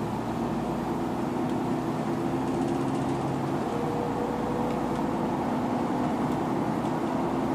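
Engine of a Connexxion city bus, fleet number 9154, running steadily with an even hum. About four seconds in, one of its tones rises slightly.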